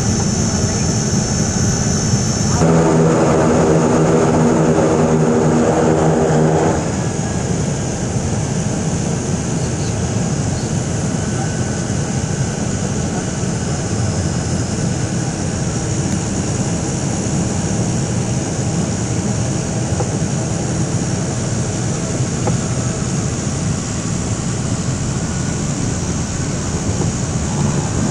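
Steady cabin noise of a de Havilland Canada DHC-6 Twin Otter's twin Pratt & Whitney PT6A turboprop engines and propellers as the plane taxis. About three seconds in, the sound grows louder with a strong pitched propeller hum for about four seconds, then drops back to a steady run.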